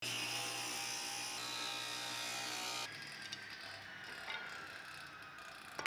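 A woodworking power tool's electric motor running steadily, then switched off about three seconds in, its whine falling slowly in pitch as it winds down.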